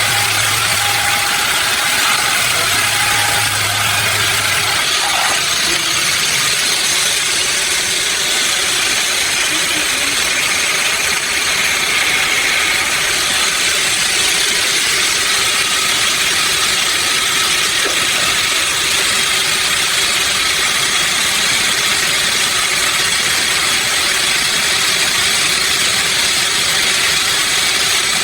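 Sawmill machinery running steadily: a loud, even mechanical noise. A low hum underneath stops about five seconds in.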